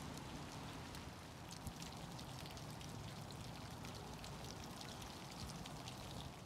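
Light rain falling, many small drops ticking irregularly, over a low steady rumble.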